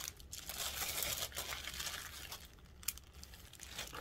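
Crinkling and rustling of items being handled on a table, louder in the first two seconds, with a few small clicks, as jewelry pieces are set down and picked up.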